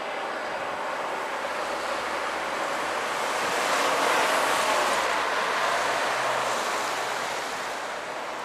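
Steady street traffic noise, with a car driving close past: it swells to its loudest about four seconds in, then fades away.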